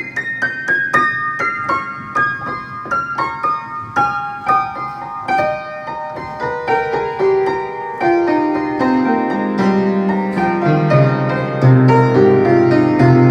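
Solo piano playing a descending passage of struck notes, stepping down from the high treble into the bass, growing fuller and louder in the last few seconds.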